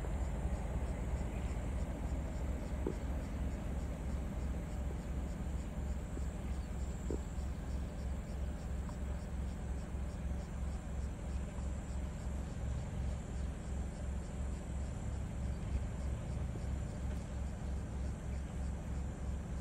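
Steady low rumble of an idling vehicle engine, pulsing evenly several times a second.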